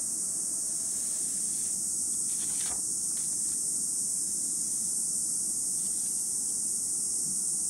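Steady high-pitched hiss, with a few soft rustles of paper as a sheet is moved, about two to three seconds in.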